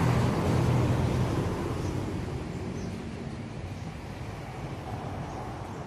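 A car driving past on the bridge, its engine and tyre noise fading steadily as it moves away.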